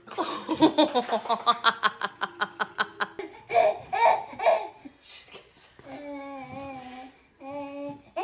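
A baby laughing hard, a rapid run of belly-laugh pulses about six a second for the first three seconds. Then come a few louder bursts of laughter and babbling, and two held voice sounds near the end.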